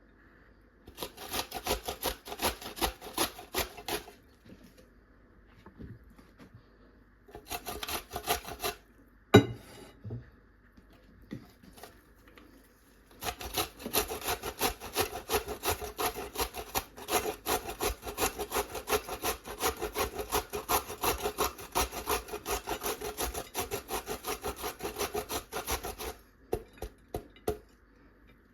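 Knife cutting vegetables on a wooden chopping board in quick, repeated strokes. It comes in three runs, the last and longest lasting about thirteen seconds, with one sharp knock just before the second pause.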